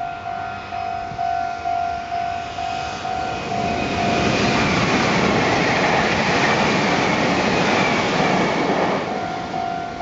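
Japanese level-crossing bell ringing at about two strikes a second, drowned out for several seconds in the middle by a Meitetsu 2200-series electric train passing close by: a steady rush of wheels on rail with a falling whine. The bell comes back through near the end as the train clears.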